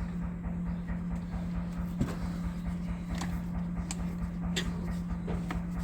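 Steady low mechanical hum from a running motor or engine drive, with a few scattered light clicks and knocks from the antique Champion leather sewing machine being handled and threaded.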